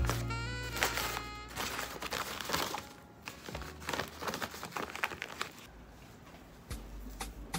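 The stiff gele head-tie fabric crinkling and rustling as it is folded and tied, over background music with a picked melody.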